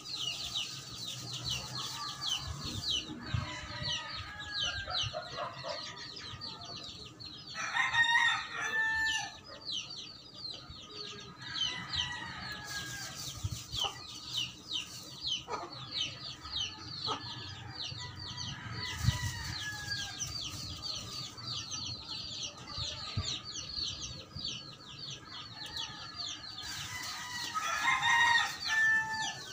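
A rooster crowing twice, about eight seconds in and again near the end, with softer chicken calls in between, over a steady fast high-pitched chirping.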